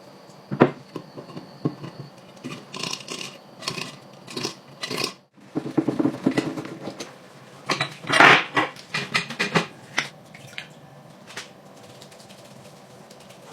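Metal parts and hand tools clinking and knocking in irregular clicks and clatters, with a louder cluster of knocks about eight seconds in.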